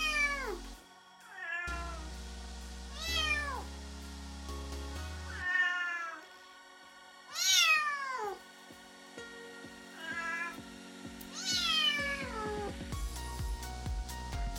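Small kitten meowing about seven times, each call high and sliding down in pitch, with pauses of one to three seconds between them.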